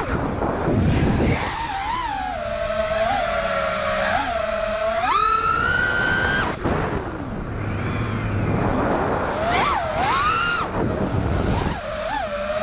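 4-inch FPV quadcopter's brushless motors whining. The pitch holds with small blips, then climbs sharply and drops away twice, about five and ten seconds in, as the throttle is punched and cut. A rushing noise fills the gaps.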